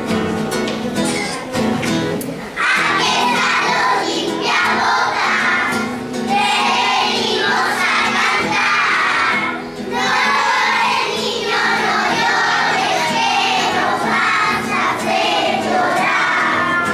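A group of young children singing together in unison to a strummed acoustic guitar. The guitar plays alone at first, and the voices come in about two and a half seconds in, singing in phrases with short breaths between them.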